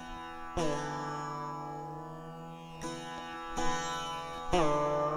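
Background music: a plucked string instrument in Indian classical style, with single notes struck about once a second or two that ring out and fade over a steady drone. A few notes bend in pitch near the end.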